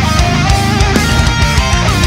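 Heavy metal music with distorted electric guitar and a fast, steady drum beat.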